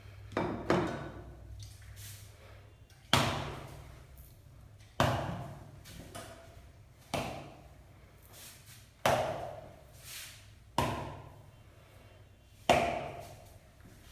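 Sharp hand slaps struck on the body during a massage, about one every two seconds. There are eight in all, two close together near the start, and each one rings on briefly in the room.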